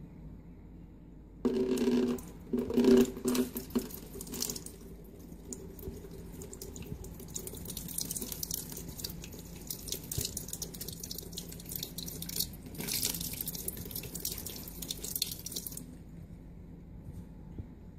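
Water trickling and dripping from the push-nozzle of an upside-down plastic water bottle as a cat paws at it and drinks from the stream. A few louder bursts come in the first few seconds, then a steady trickle runs until near the end.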